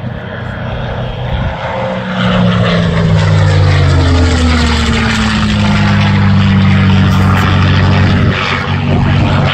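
P-51 Mustang's V12 Merlin engine and propeller in a low flypast, getting louder about two seconds in, its pitch falling as the fighter passes overhead and then holding steady.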